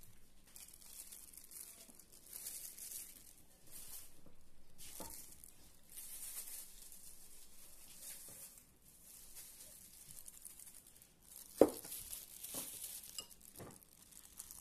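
Soft rustling in short patches as grated coconut is sprinkled by hand over puto bumbong on banana leaves. A little past two-thirds of the way in there is one sharp clink, then a few lighter clicks, as a metal spoon goes into a ceramic bowl of brown sugar.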